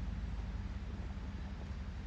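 Pickup truck engine running with a steady low rumble.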